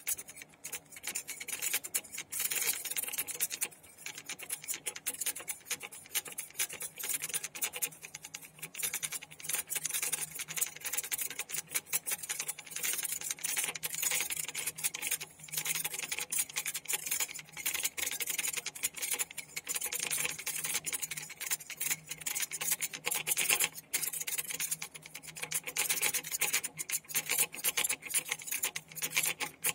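A small bowl fitted with a metal rod and aluminium-foil strips spinning and wobbling on a tabletop, driven by an electromagnetic field. It makes a rapid rasping scrape with dense fast ticking as it turns, over a faint steady low hum.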